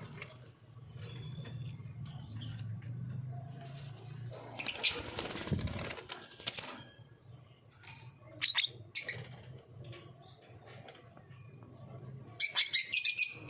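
Lovebirds giving short, sharp, high chirps, with a rustling burst of wing flapping about five seconds in and a quick run of loud chirps near the end. A low steady hum lies underneath.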